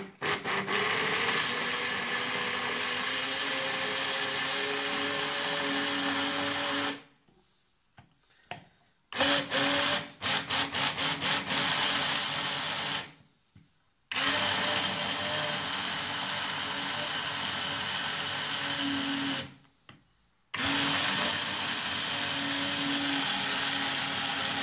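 Immersion blender motor running in a plastic beaker, puréeing cooked tomato and vegetable sauce. It runs in several long bursts with short stops between them, and gives a few quick pulses about nine seconds in.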